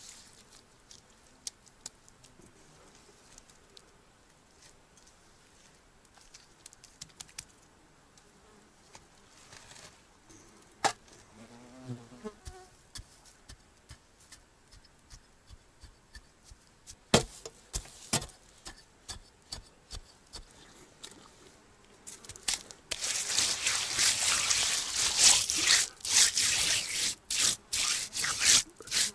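A hand rubbing and smoothing wet mud on the ground, a loud scraping rub that starts near the end. Before that it is mostly quiet, with scattered light clicks of handling and a fly buzzing past about halfway through.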